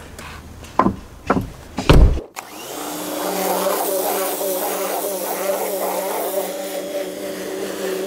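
A few loud knocks and thumps, then from about two seconds in an electric cleaning machine's motor running with a steady buzzing hum.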